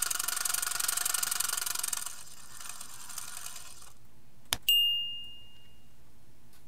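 Outro sound effect: a rapid mechanical ticking, like a ratchet or winding gears, for about two seconds, fading off, then a sharp click followed by a bright single ding that rings out.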